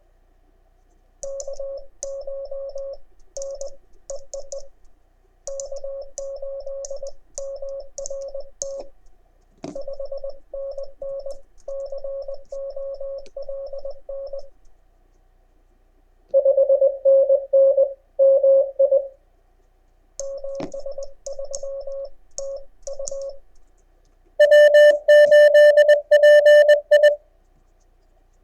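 Morse code (CW) tones from an amateur radio transceiver: stations in a contest pile-up sending in quick dit-and-dah bursts at a steady pitch, with short pauses between overs. Near the end a louder, slightly higher-pitched run of Morse comes in, and there are two faint clicks along the way.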